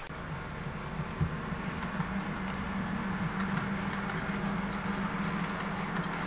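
Model train running along the track, a steady low hum with the rumble of its wheels on the rails growing louder as it passes. Light regular ticking, about three a second, runs through it.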